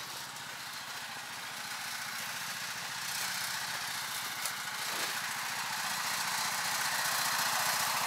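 Small engine of a Rybak motorized towing dog (snow tug) running steadily as it pulls a loaded sled, getting gradually louder as it approaches.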